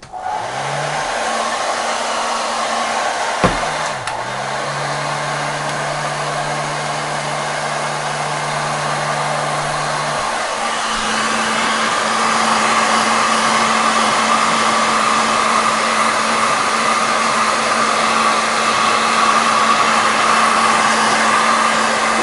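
Handheld hot-air blower running steadily, heating the phone's replacement glass to set the adhesive. A click about three and a half seconds in shifts its hum, and it runs louder from about eleven seconds on.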